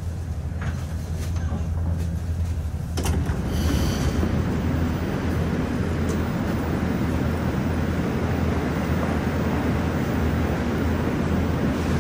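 Inside a Moscow Metro 'Moskva 2020' (81-775/776) train car: a low steady hum for about three seconds. Then, suddenly, the even rumble of the train running on the rails, which holds steady.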